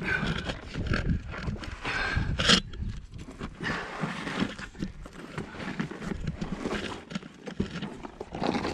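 Hiker shuffling and sliding along a sandstone ledge: irregular scrapes, rustles and knocks of body, clothing and camera against the rock, with one sharper knock about two and a half seconds in.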